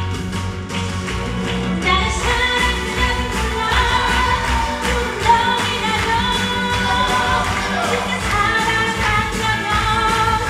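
Upbeat pop song with a steady beat; a singing voice joins the band about two seconds in.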